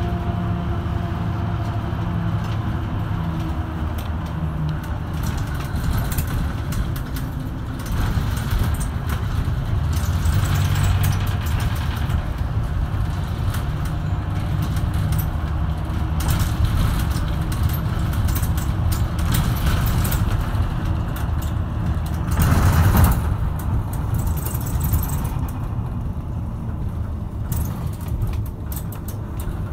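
Bus engine and road noise heard from inside the cabin, with interior fittings rattling now and then. The noise swells briefly about three-quarters of the way through.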